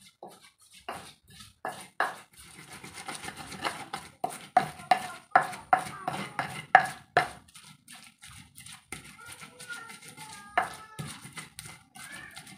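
Stone pestle (ulekan) grinding and knocking shallots, garlic and onion into a spice paste in a cobek mortar, in regular strokes about two a second. The strokes grow softer in the last few seconds.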